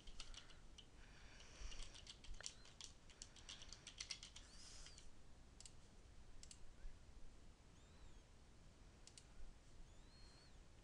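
Faint computer keyboard typing, a quick run of key clicks for about the first five seconds, then a few scattered single clicks from a computer mouse.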